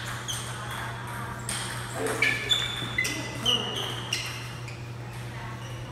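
Table tennis rally: the ball clicking off paddles and table in quick alternation, each hit with a short ping, the hits about half a second apart and loudest around the middle. A steady low hum runs underneath.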